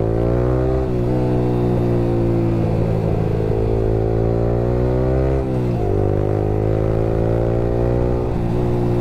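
Yamaha R15 V3 motorcycle's single-cylinder engine running through an aftermarket Akrapovic R9 exhaust while riding. The engine note climbs slowly, eases off briefly about a second in, then drops sharply a little past halfway before climbing again.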